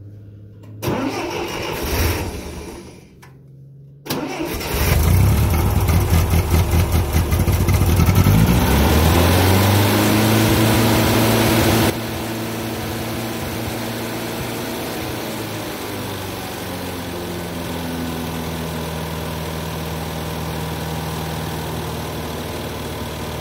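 Massey Ferguson tractor's gasoline engine being started after a new tank lining, fuel lines, filter and carburetor: a short crank that doesn't catch, then a second crank about four seconds in that fires. It runs fast and loud, picks up speed, then drops suddenly to a steady idle about halfway through.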